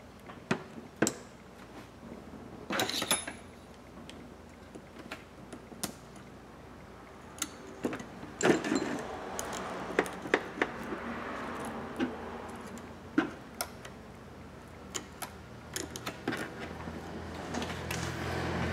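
Small hand tools handled on a repair bench: repeated sharp clicks and taps as precision screwdrivers are picked up and set down and a metal spatula pry tool works against the phone's metal frame, with short rustles in between. A low hum swells near the end.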